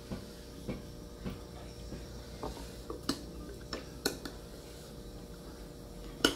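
Metal spoon clinking and scraping against a ceramic bowl: a string of irregular light clicks, with a sharper knock near the end.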